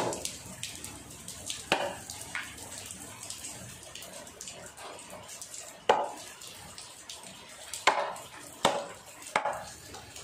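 Water splashing and dripping in a sink or basin, with several sharp, irregularly spaced knocks as things are handled in it.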